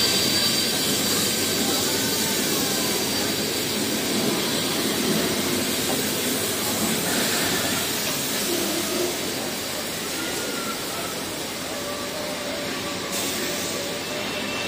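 A steam-hauled heritage train of 1930s NSW Government Railways carriages rolling past along the platform as it arrives, a steady running noise of wheels on rails that eases a little toward the end.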